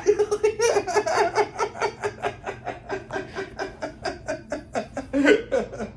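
A person laughing in a long run of quick pulses, about four a second.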